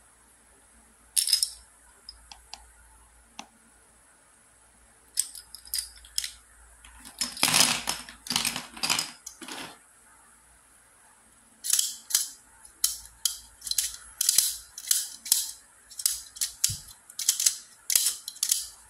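Small hard plastic cubes clacking against each other and the plastic cage of a YJ Tick Cage puzzle as they are handled and put in, with a louder cluster of clacks and rattles near the middle. In the second half the plastic cage is turned in the hands, giving a run of sharp clicks about three a second.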